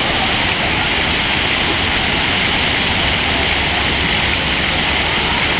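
Steady rush of falling and splashing water from water-park play features, an even hiss with no break.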